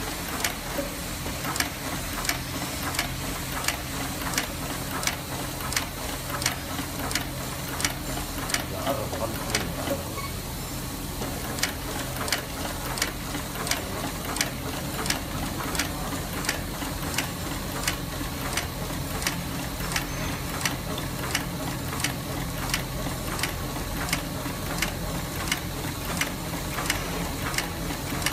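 LX-836 outsole stitching machine sewing round the sole of a sandal: a sharp click with each stitch, about two a second, over the steady hum of its motor.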